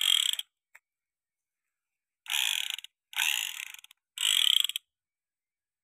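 Four short bursts of rapid rattling mock automatic gunfire: one right at the start, then three close together between about two and five seconds in, each cutting off sharply.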